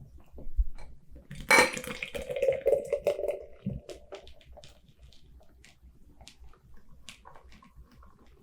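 Stout poured from a crowler can into a glass: a splashing pour begins about a second and a half in and runs for about two seconds, followed by faint scattered ticks.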